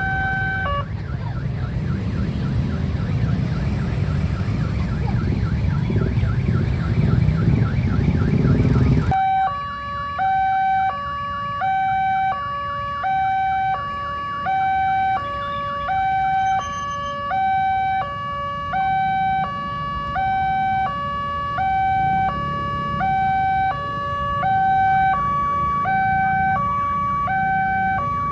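Railway level-crossing warning alarm: an electronic siren alternating steadily between a higher and a lower note, about one high-low cycle every 1.3 seconds. A loud low rumble runs under it for about the first nine seconds and cuts off abruptly, leaving the alarm on its own.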